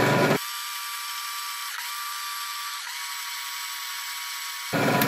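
Electric food chopper motor running, grinding garlic, ginger, salted shrimp and pear juice into a seasoning paste. It is loud and full at first, changes abruptly to a thinner, steady high-pitched whine for about four seconds, then returns to the loud, full grinding near the end.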